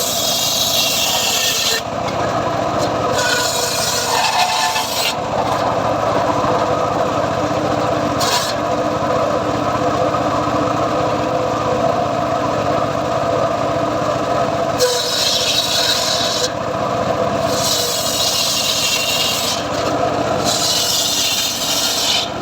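Homemade engine-driven circular saw running steadily while its blade cuts teak wood. The high rasp of the cut comes and goes several times, each cut lasting one to two seconds, over the steady running of the rig.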